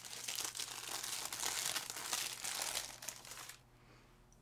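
Crinkling of a small white wrapper as an earring is unwrapped by hand, a busy crackle that stops about three and a half seconds in.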